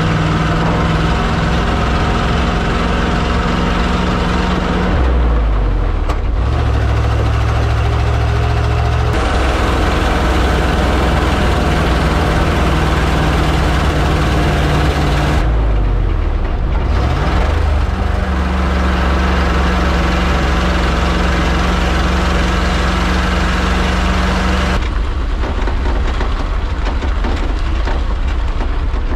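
Loaded grain truck's engine running steadily as the truck is driven, with its note dropping and picking up again a few times, about 5 and 16 seconds in.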